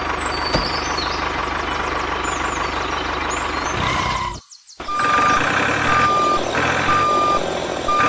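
A truck engine runs steadily, then after a short break a reversing alarm beeps about once a second over the engine.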